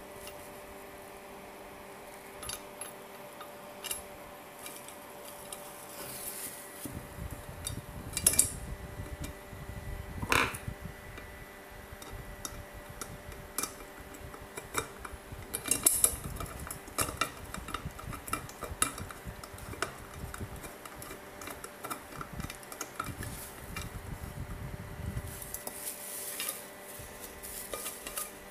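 A 20 cm JML Stone-Ware frying pan being handled and turned over on bubble wrap: scattered knocks of the pan, one about ten seconds in with a short ring, amid crinkling of the plastic wrap.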